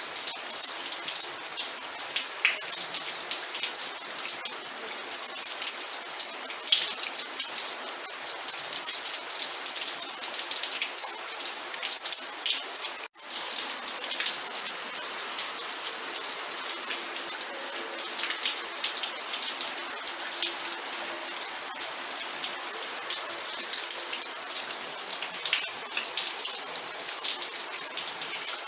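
Steady rain, a dense patter of drops with individual drops ticking through it. It cuts out for a split second about halfway through.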